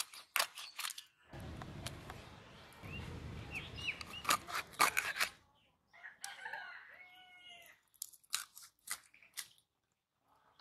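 Crunching and scraping as a fish is cut on a boti blade, with sharp clicks of the cuts. A rooster crows once about six seconds in.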